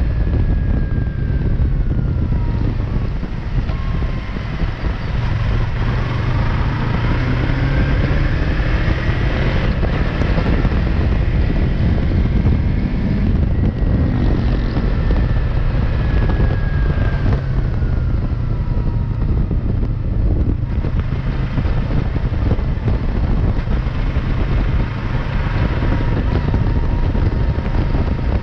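Yamaha MT-03 motorcycle riding through town, its engine note rising and falling several times as it speeds up, shifts and slows, under heavy wind buffeting on the microphone.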